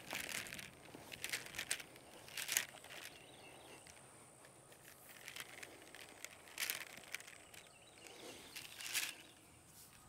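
Faint outdoor ambience broken by a handful of short, soft rustles and scuffs, a second or more apart, as black drip irrigation tubing is unrolled and dragged along a sandy garden row. A faint steady high tone sits in the background.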